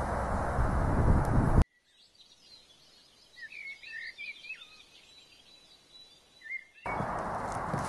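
Steady, rushing outdoor background noise that cuts off abruptly about a second and a half in. A quiet stretch follows with a few short bird chirps in the middle and a couple more near the end, then the noise comes back suddenly just before the end.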